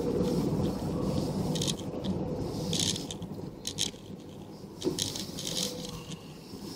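Low rumble of a vehicle driving slowly, heard from inside its cabin, with light rattles and clicks about once a second. The rumble eases about halfway through.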